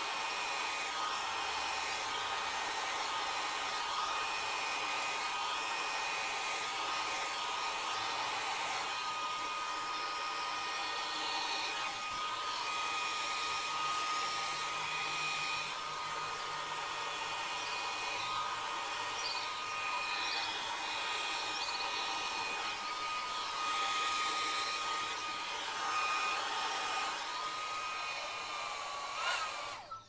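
Hand-held hair dryer running steadily, its motor whining at one fixed pitch over the rush of air as it blows across wet acrylic paint. It cuts off near the end.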